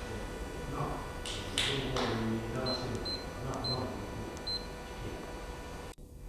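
Four short, high beeps from a roll feeder's touch-panel control screen as its buttons are pressed, after two short hisses about a second and a half in, over a steady low hum.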